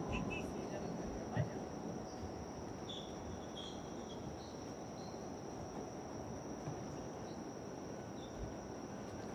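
Outdoor ambience at a football pitch: a steady high-pitched whine over a low rumble, with a couple of dull thuds of a football being kicked.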